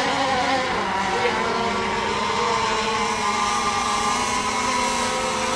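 Radio-controlled racing boats running at speed on the water, their motors making a steady high whine, with several motor pitches layered together. This is the milling before a race start, when the boats circle until the countdown.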